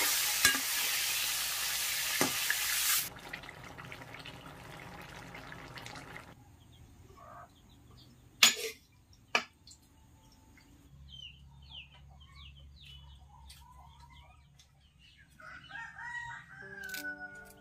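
Pieces of fish frying in hot mustard oil in an aluminium wok: a loud sizzle that drops away after about three seconds. Then two sharp clinks, faint birds chirping, and a rooster crowing near the end.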